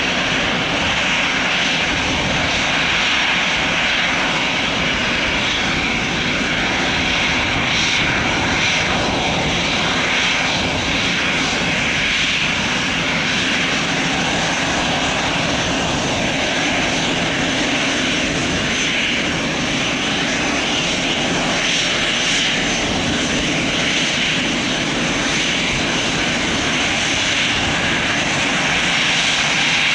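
Airbus A319's twin jet engines running at taxi power as the airliner taxis: a steady jet noise with a high rushing hiss.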